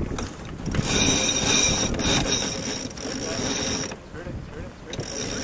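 Sailboat's headsail sheet winch ratcheting rapidly as the sheet is hauled in while rounding a mark, running for about three seconds, then stopping.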